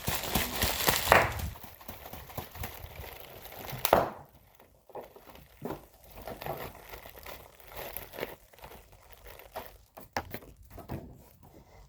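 Plastic bubble wrap crinkling and rustling as it is handled, densest in the first two seconds, with a sharp crackle about four seconds in and then scattered lighter crinkles.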